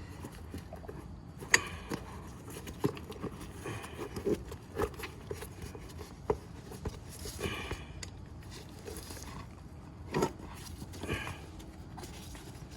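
Handling noise of a scooter inner tube being pulled out of its tyre by hand: irregular light knocks and clicks with short rubbing scrapes, the sharpest knock about one and a half seconds in.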